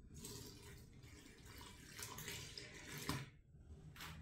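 Warm water being poured into a stand mixer's bowl onto the flour for a bread dough, a faint steady pour with a light knock about three seconds in.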